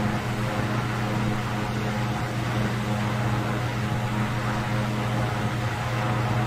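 1960s Toastmaster Model 5302 electric fan running, a steady motor hum with the rush of air from its blades.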